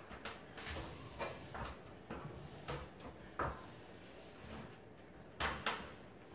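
Hand and cloth rubbing self-adhesive wallpaper flat against a ceiling: a run of short, uneven swishing rubs, the strongest about three and a half seconds in and a pair near five and a half seconds.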